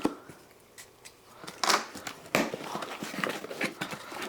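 Shipping packaging being opened and handled: irregular rustling and crinkling with a few sharp clicks, the loudest rustles a little before and after the middle.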